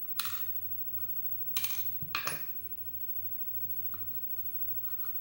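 Small metal clinks and knocks from a padlock being worked by hand to get the pins and spring out of one of its chambers: three sharp clinks in the first couple of seconds, then a few faint ticks.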